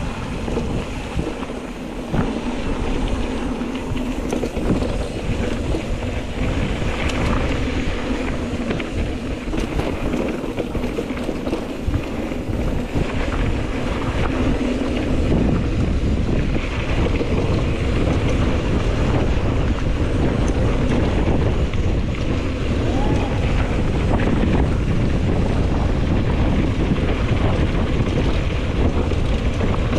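Wind buffeting the microphone and tyres rolling over a dry dirt trail as a mountain bike descends, with a few small knocks from the bike. The low wind rumble gets heavier about halfway through.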